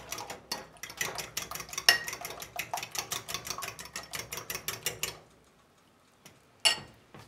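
Metal fork beating raw eggs in a ceramic bowl: rapid, even clicking of the tines against the bowl, several strokes a second, stopping about five seconds in. One more single clink near the end.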